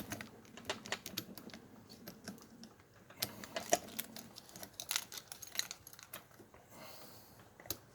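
Faint, irregular small metallic clicks and scrapes of a lock pick being jiggled around inside a pin-tumbler lock cylinder, working loose whatever is lodged in it.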